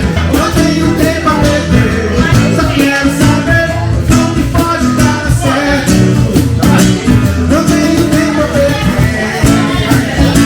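Live band music: guitar and a singing voice over a steady beat.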